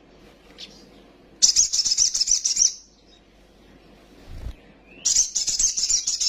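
A sunbird (kolibri sogon) singing two bursts of rapid, high twittering, the first about a second and a half in and the second near the end. Between them there is a soft low thump.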